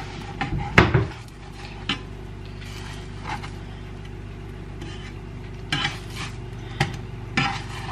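Spatula knocking and scraping against a nonstick frying pan while a pancake is turned, with scattered clicks and one louder knock with a thump about a second in, over a steady low hum.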